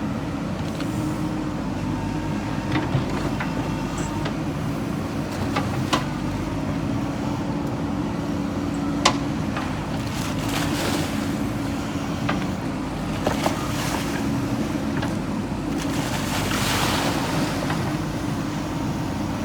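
JCB backhoe loader's diesel engine running steadily, with a few sharp knocks and two bursts of rushing, watery noise, the second near the end.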